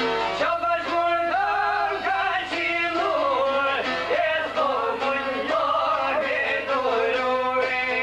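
Albanian folk song: a man singing a wavering, heavily ornamented melody over string-instrument accompaniment.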